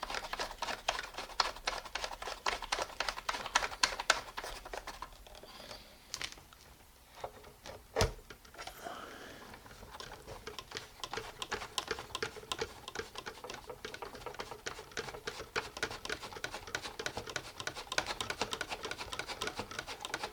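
Rapid, irregular plastic clicks and taps from toy farm vehicles being handled and pushed about. There is a short lull about six seconds in and one sharper knock about eight seconds in.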